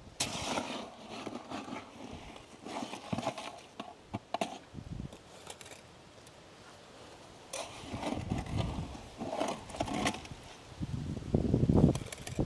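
Irregular scraping, rubbing and knocking of hands and stone working wet concrete and sandstone chunks around rebar pins, with a louder, longer low thud near the end.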